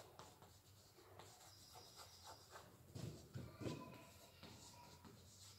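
Chalk writing on a chalkboard: faint scratches and taps as letters are stroked out, a little louder about three seconds in.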